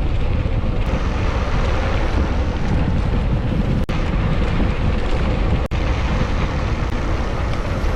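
Wind buffeting the microphone of a camera riding on a moving mountain bike: a loud, steady, low rumbling rush that cuts out for an instant twice in the middle.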